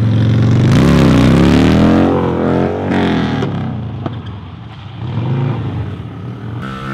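Stunt motorcycle engine revving hard, its pitch swinging up and down as the rider works the throttle through a wheelie. It eases off about four seconds in, then picks up again.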